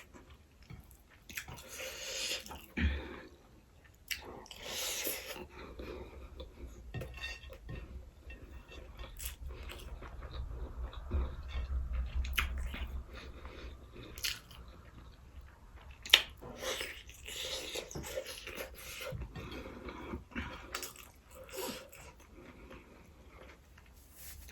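Close-up eating sounds: chewing and smacking a mouthful of sausage, mushroom and egg fried rice, with occasional clicks of a spoon or dish.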